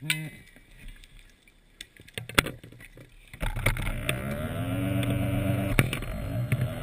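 Underwater dive scooter's electric motor starting up about three and a half seconds in: its hum rises in pitch, then runs steady, dipping briefly and picking up again near the end. A couple of sharp clicks come before and during it.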